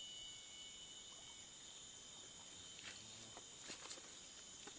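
Faint, steady high-pitched drone of insects, with a few faint clicks in the second half.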